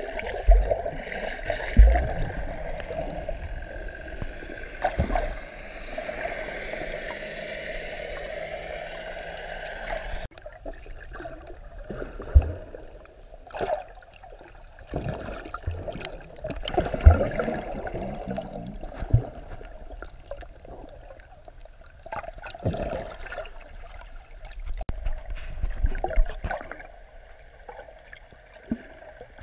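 Muffled underwater sound of moving water, heard through a submerged camera, with scattered dull low thumps. The sound drops abruptly to a quieter level about ten seconds in.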